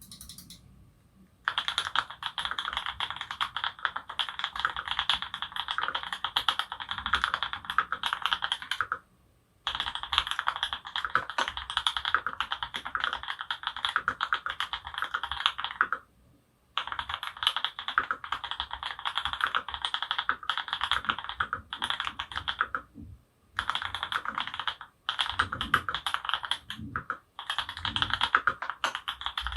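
Custom mechanical keyboard with lubed Creamsicle switches (C³ Tangerine housings, NovelKeys Cream stems) on an aluminum plate, typed on fast and continuously. The typing starts about a second and a half in and stops briefly three times, then comes in shorter runs near the end.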